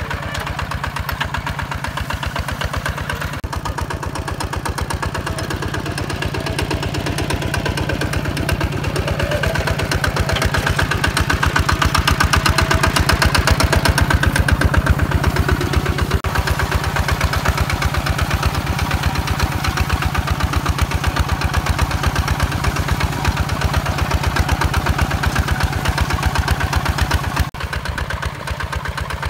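Single-cylinder diesel engine of a HINOTA HG Gold 155 DI two-wheel walking tractor running under load while it pulls a plough through dry soil: a steady, fast, even beat of firing strokes, a little louder in the middle.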